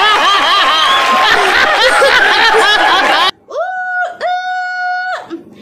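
A man and a studio audience laughing loudly together, with clapping, cut off abruptly about three seconds in. Then a woman's voice holds one long, high, steady note, broken twice near its start.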